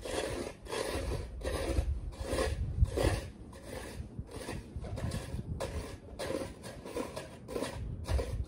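Snow being scraped and scooped in quick repeated strokes, about two a second, with a gritty rasping crunch to each stroke.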